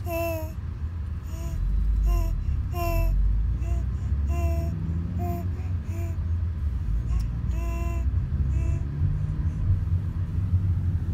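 Infant babbling and cooing in a string of short, high-pitched vocal sounds, with a break near the end, over the steady low rumble of a moving car.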